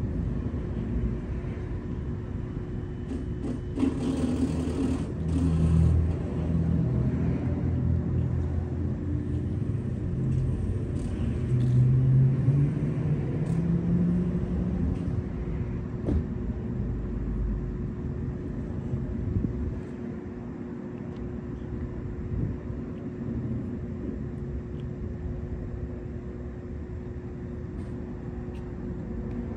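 A low engine rumble under a steady hum. It swells about four seconds in, rises in pitch around ten to fourteen seconds in, then eases off after about twenty seconds.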